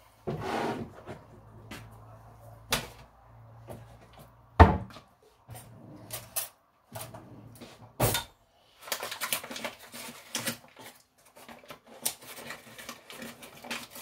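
Chopsticks stirring a wet grated zucchini and carrot mixture in a glass baking dish: soft squelching with irregular clicks and taps of the chopsticks against the glass. The sharpest knocks come about four and a half and eight seconds in, with a quick run of clicks in the last few seconds.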